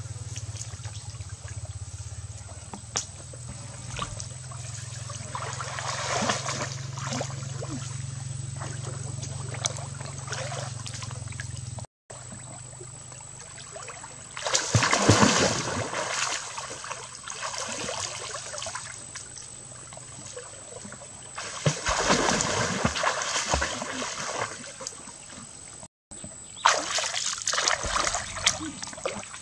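Water splashing and sloshing as people wade waist-deep through a stream and feel about in it with their hands. The splashing comes and goes in louder bursts, about halfway through and again near the end.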